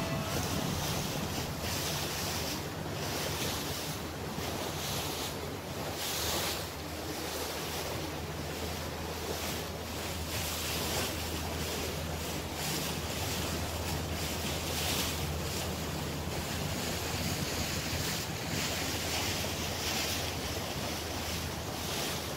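Motorboat engine running steadily under way, a constant low hum, with water rushing past the hull and wind buffeting the microphone.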